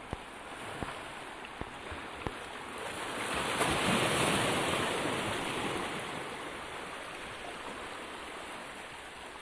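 Sea waves surging and washing over shoreline rocks: one surge swells about three seconds in and eases off over the next few seconds. A few faint clicks sound in the first couple of seconds.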